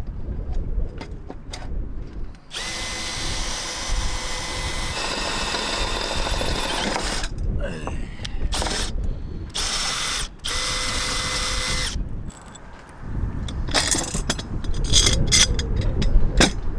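Electric drill running in two longer bursts of a few seconds each, with a short burst in between, and knocks and clatter of handled metal parts around them.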